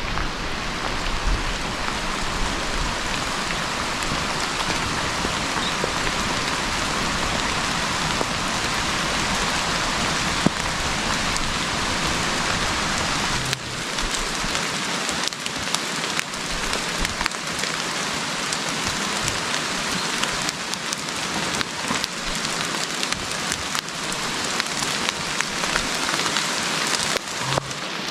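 Steady rain falling, with many separate close drops ticking. A low rumble underneath drops away about halfway through.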